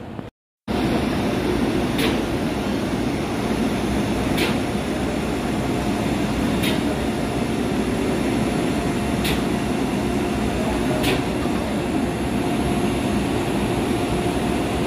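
Electric locomotives, an FS E656 among them, standing at the platform with their equipment running: a loud, steady whir with a faint steady tone in it. A sharp click sounds about every two seconds, five times.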